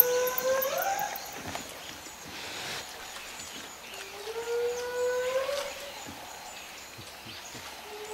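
Spotted hyena whooping: long, drawn-out calls about four seconds apart, each holding a low note that creeps upward and then sweeps higher at the end. Two full whoops, with a third starting right at the end.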